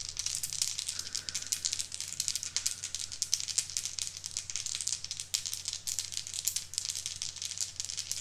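A handful of Elder Sign game dice being shaken for a re-roll, rattling continuously against each other.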